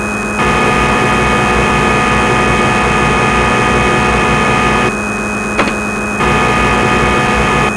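CNC lathe running with a steady machine hum and whine. It gets louder and adds higher tones about half a second in, drops back for about a second with a single click around five seconds in, then rises again.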